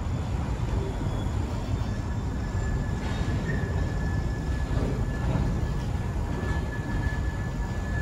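Freight train of boxcars rolling across a stone arch railroad bridge overhead: a steady low rumble, with a thin high whine joining about two seconds in.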